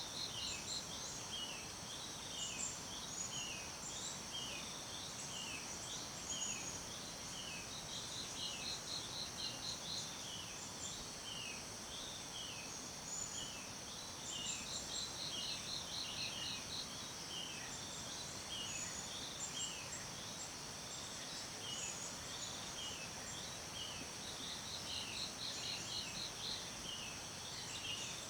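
Forest ambience: a steady high insect drone, with birds repeating short falling chirps about twice a second and a rapid trill every six seconds or so, over a soft even hiss.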